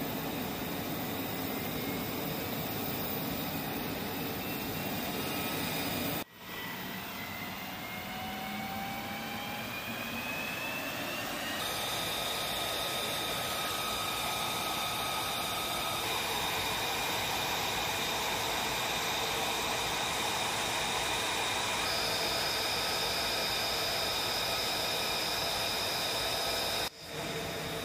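F-35B jet engines running on the flight line: a steady rushing noise with high whines, one slowly rising in pitch over the first seconds. The sound drops out briefly about six seconds in and again near the end.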